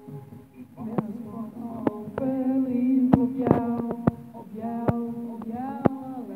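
A woman singing long, wavering held notes into a handheld microphone over a soft backing track, with sharp clicks scattered through.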